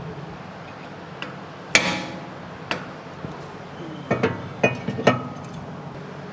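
Hammer blows on metal with a clanging ring: one loud strike about two seconds in, a lighter one after it, then a quick run of four strikes near the end.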